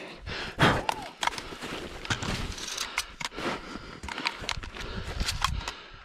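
Crunching snow, rustling brush and snapping twigs as someone pushes through bare shrubs, with many sharp clicks and a loud knock about half a second in.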